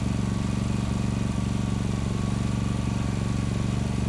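WEN GN400i inverter generator running steadily with no load on it, its engine tone even throughout.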